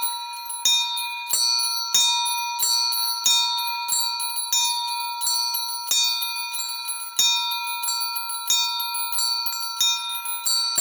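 A set of eight bells on a belfry rung in an Orthodox-style peal: high, clear ringing tones, with a strong stroke about every two-thirds of a second and quicker, lighter strokes between.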